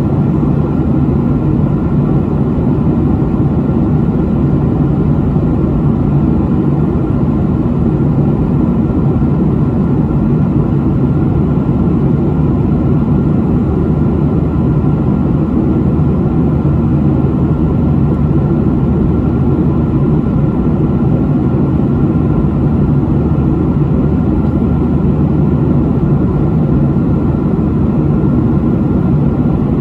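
Steady cabin drone of a Boeing 737 airliner in flight, heard from a window seat: a low rumbling rush of engine and airflow noise with a faint steady whine above it.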